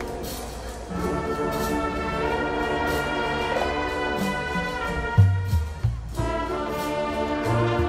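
Marching band playing, brass holding full sustained chords, with loud low accented notes from about five seconds in.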